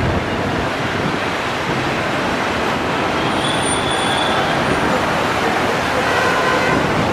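Two diesel locomotives in multiple, a WDP4 leading, hauling a passenger train at slow speed: a steady mix of engine and wheels on rail.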